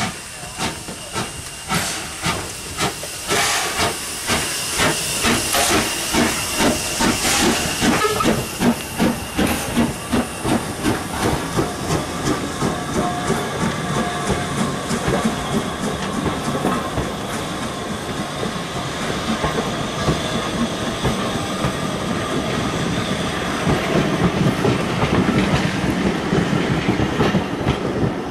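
Hunslet 'Austerity' 0-6-0 saddle-tank steam locomotive pulling away with steam hissing, its exhaust beats quickening as it passes. After that, the carriages roll by with a steady rumble and clatter of wheels on the rails.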